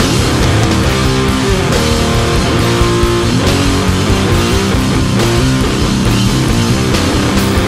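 Loud, steady guitar-led music.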